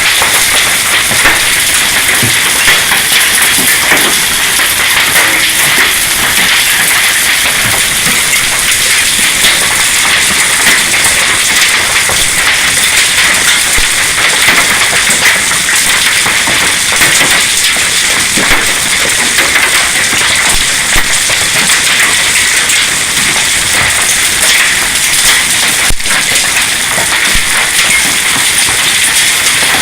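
A hailstorm: a loud, dense, unbroken clatter of hailstones, some of them about quarter size, pelting down.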